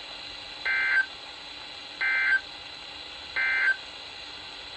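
Emergency Alert System end-of-message data bursts: three short, buzzy digital squawks about 1.35 seconds apart, over steady radio hiss. They mark the close of the warning message.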